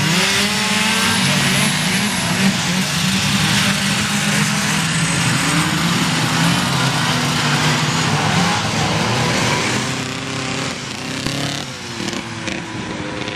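Vintage two-stroke snowmobile engines running loud, their pitch wavering up and down as the machines rev, easing off somewhat in the last few seconds.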